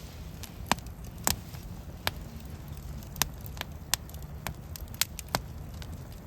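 Wood campfire crackling: irregular sharp pops and snaps, about ten in all, over a low steady rumble.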